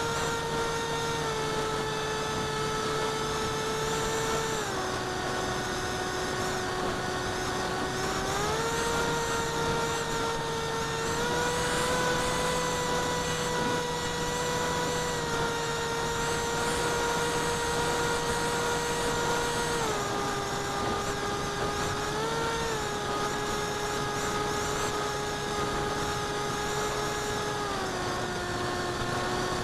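Electric motor and propeller of a small flying wing, heard from a camera mounted on the plane: a steady whine that steps down and back up in pitch several times as the throttle changes, over a rush of air noise.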